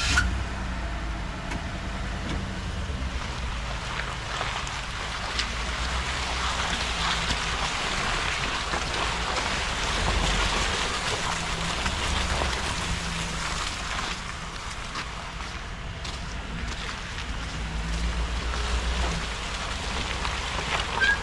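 2014 Ford F150 pickup's engine idling steadily, with wind rushing over the microphone.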